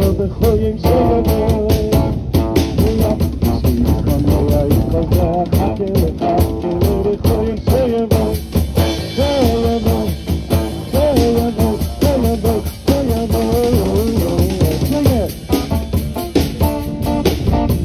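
Live Chasidic rock band playing a song: guitars with a wavering melody line over a steady drum-kit beat.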